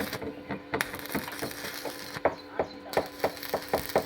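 A rapid, irregular run of sharp knocks and taps, about three or four a second, louder in the second half, over a faint steady hum.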